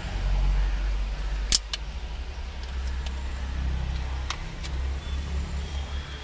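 Plastic clicks and snaps from a steering-wheel airbag clock spring's rear cover being prised open, about six in all, the loudest about one and a half seconds in. A low rumble runs underneath.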